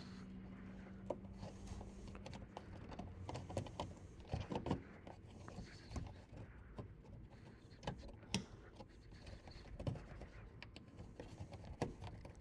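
Plastic push-pin clips being pressed into a car's wheel-well liner and plastic splash shield: faint scattered clicks and plastic-on-plastic rubbing, with a few sharper snaps.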